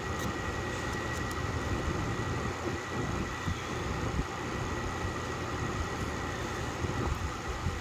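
Steady background rumble and hiss with a thin, constant high whine, and a few faint light clicks in the first second and a half.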